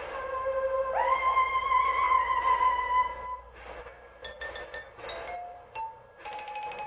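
Music from a Lionel Legacy model locomotive's onboard sound system. A lead tone glides up about a second in and wavers for about two seconds, then a run of short stepped notes follows.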